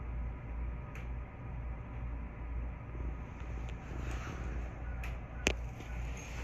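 Standing 221-series electric train with its onboard equipment running: a steady low hum with a regular throb. A faint click comes about a second in and a sharp click about five and a half seconds in.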